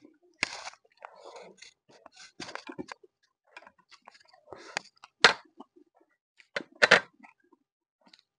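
Close-miked eating sounds from a mouthful of instant noodles being chewed: a run of short, wet mouth noises, the two loudest about five and seven seconds in.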